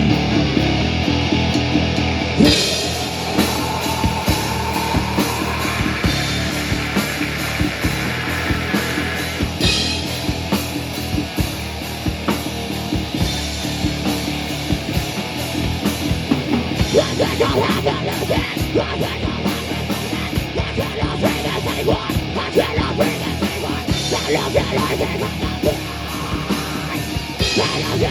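Live punk rock band playing loud, with distorted electric guitar, bass and a drum kit crashing cymbals.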